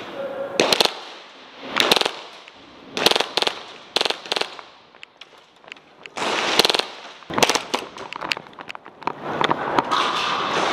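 Airsoft guns firing: several short bursts of sharp cracks, with a longer rapid burst about six seconds in.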